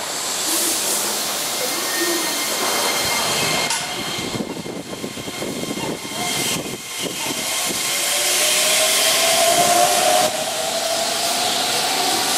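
Keihan 10000-series electric train pulling out of the station, its cars rolling past at close range. From about eight seconds in, a rising whine from the drive climbs steadily as the train gathers speed. Wind noise on the microphone runs underneath.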